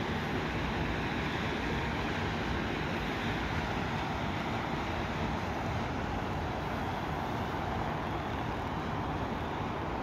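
A boat under way: its engine running steadily under a constant rushing noise of moving water and air.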